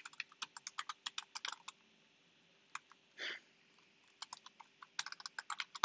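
Typing on a computer keyboard: quick runs of keystrokes, a pause of about two seconds in the middle with a short soft noise, then another quick run near the end.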